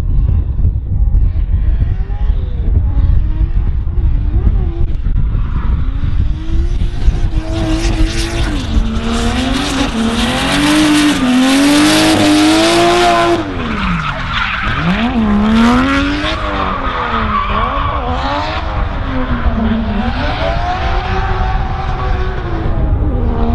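Turbocharged 1JZ straight-six of a Nissan 240SX (S14) drift car revving up and down as it slides sideways, its tyres screeching loudly during the nearest pass. The engine note drops sharply about halfway through, then keeps revving up and down more faintly as the car drifts on around the track.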